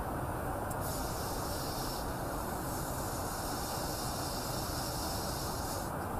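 Steady rushing noise of aircraft in flight during air-to-air refuelling, with a higher hiss that starts about a second in and stops just before the end.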